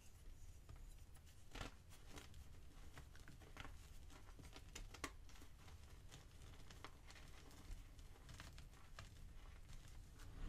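A block of gym chalk squeezed and crumbled by hand: faint, irregular soft crunches and crackles, with hands pressing into loose chalk powder near the end.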